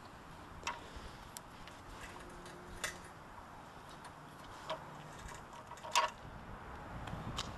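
About six sharp, scattered clicks, metal on metal, from handling the throttle lever and handlebar frame of a two-man post hole auger. The engine is not running.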